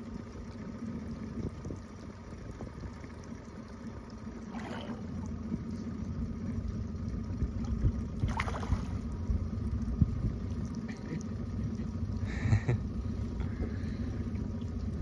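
A hooked smallmouth bass being reeled to the boat, splashing briefly at the surface three times, about five, eight and twelve seconds in, over a steady low rumble.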